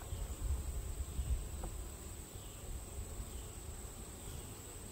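An insect's steady high-pitched trill over a low rumble on the microphone, with one light click of a metal hive tool against the wooden hive frames about one and a half seconds in.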